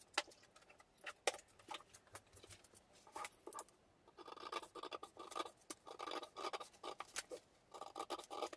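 Large scissors cutting along a drawn line in paper pattern sheet, a quick run of short snips starting about four seconds in. Before that, a few sharp light knocks and rustles as the ruler and pen are set down and the paper is handled.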